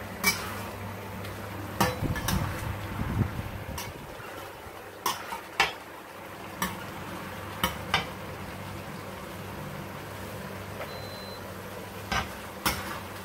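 Cookware being handled: about ten sharp metal clinks and knocks at irregular intervals, each ringing briefly, over a low steady hum.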